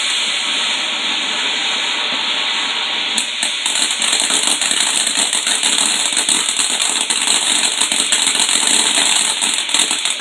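Ground firework fountain spraying with a steady hiss; about three seconds in, a dense, rapid crackling starts and keeps on over the hiss.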